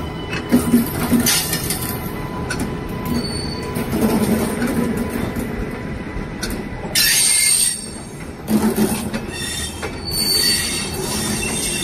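Indian Railways LHB passenger coaches rolling slowly past, wheels clicking over the rail joints and points. The wheels squeal in high screeches about seven seconds in and again from about ten seconds.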